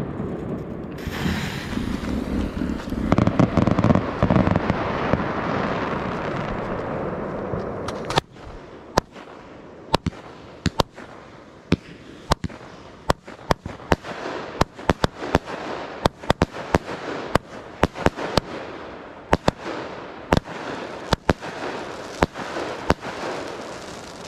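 Röder 'Danke' 16-shot firework battery. After a rushing hiss over the first several seconds, it starts firing about eight seconds in: a rapid string of sharp shots and cracking bursts, several a second.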